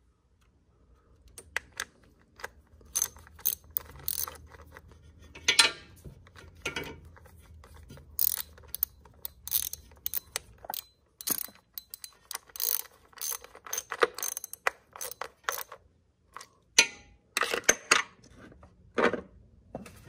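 Hand ratchet clicking in short irregular runs, driving an ignition coil's hold-down bolt back in by hand.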